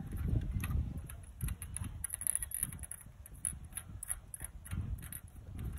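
Light metallic clicks and scratches of a spark-plug socket being fitted and worked by hand on a Bajaj Pulsar AS200's engine, over a low handling rumble.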